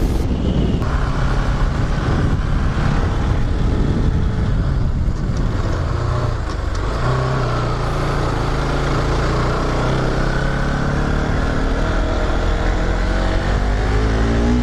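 Motorcycle engine running steadily while the bike is ridden, its pitch shifting slightly about halfway through.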